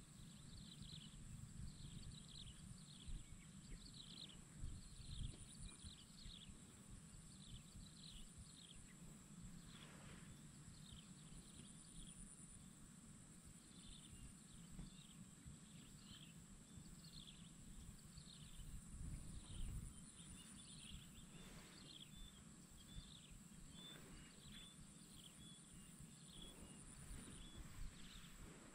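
Faint swamp ambience: short, high, falling chirps from small wildlife repeat about twice a second over a steady high-pitched hum and a low rumble.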